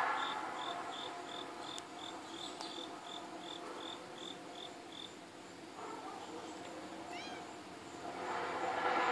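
An insect chirps steadily, about three high chirps a second, stopping about five seconds in. Under it a low droning hum made of several steady tones fades away at first and swells back up near the end. A short, quick high trill comes about seven seconds in.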